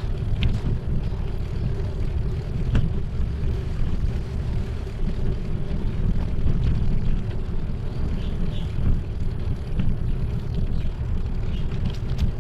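Steady low rumble of wind on the microphone and bicycle tyres rolling over a concrete path while riding, with a few faint clicks.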